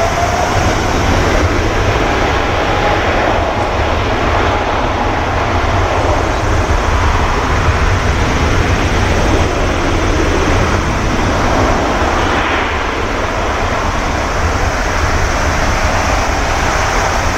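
Boeing 777 freighter's twin GE90 turbofan engines running at high thrust as the jet rolls away down the runway: a steady, loud jet noise with a deep rumble, and a faint whining fan tone near the start.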